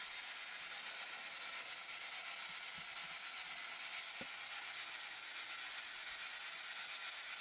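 Steady hiss in a quiet room, with two faint short knocks about three and four seconds in.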